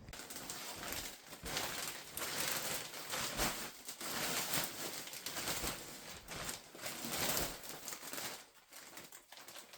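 Irregular rustling and crinkling, a run of soft scratchy noises that thins out in the last couple of seconds.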